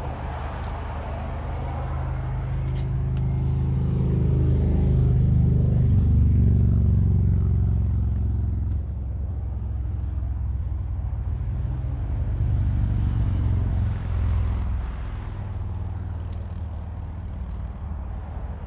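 A motor vehicle's engine running with a low, steady rumble. It grows louder to a peak about six seconds in, then eases off and carries on at a lower level.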